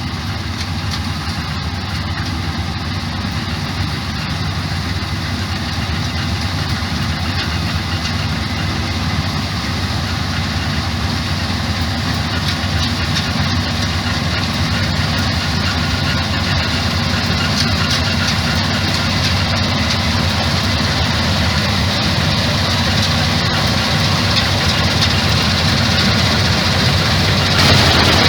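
Combine harvester running at work: a steady heavy engine drone with a strong low hum that slowly grows louder, stepping up near the end.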